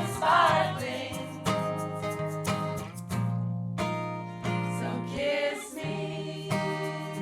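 Live music: singing in the first second, then an acoustic guitar strumming chords, each strum ringing out, with a short pause about halfway through.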